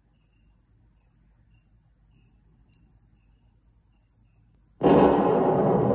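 A faint steady high insect trill with a few soft cricket chirps, then about five seconds in recorded music starts suddenly and loudly through a pair of Magnepan 0.5QR dipole panel speakers.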